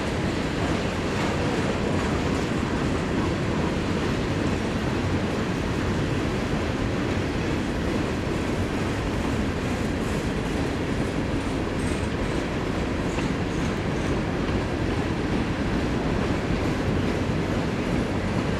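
Freight train rolling past, its railcar wheels making a steady rumbling noise on the rails.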